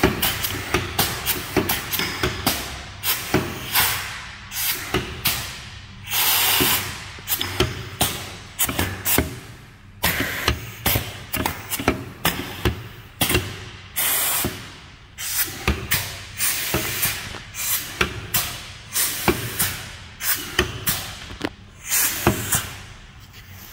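Matthews MB-35 pneumatic stamper being cycled: many sharp metallic knocks from the ram and steel parts, broken by short bursts of compressed air hissing from the air cylinder.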